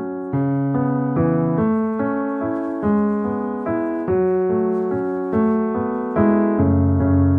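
Background piano music: a gentle melody of single notes struck at an even, unhurried pace.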